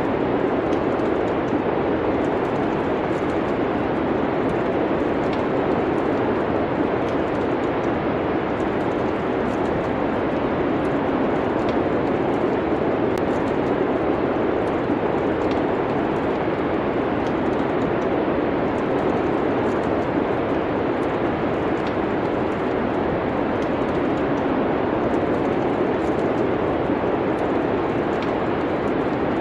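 Steady rushing wind of a winter snowstorm ambience, with faint, scattered crackles of a fireplace fire throughout.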